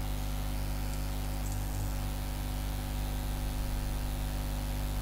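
Steady low electrical hum with hiss from the recording microphone, unchanging throughout.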